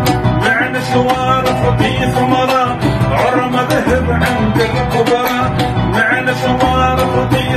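Instrumental passage of an Algerian bedoui song in a modern arrangement: an oud and an electronic keyboard play the melody over a steady beat.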